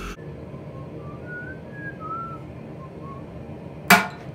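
A few faint whistled notes, then near the end a single loud hammer blow on a touch-mark stamp held against red-hot steel on the anvil, with a brief metallic ring.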